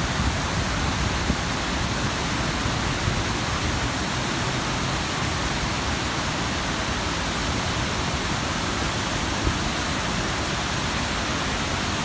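Waterfall rushing, a steady, unbroken roar of falling water.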